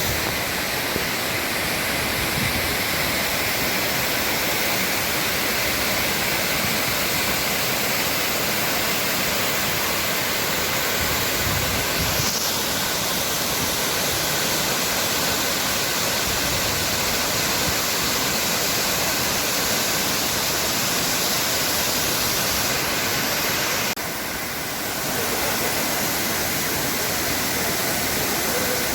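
Upper Düden Waterfall's water falling, a loud steady rush. It drops slightly in level for a moment a few seconds before the end.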